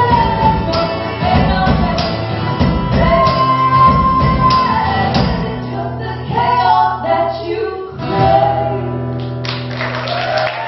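A song played live, in its final bars: singing with long held notes over instruments with regular beats. About nine and a half seconds in, the music gives way to audience applause.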